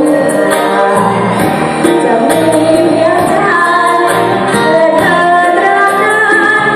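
Music with singing: a voice sings a melody over sustained band accompaniment with a steady beat of high ticks.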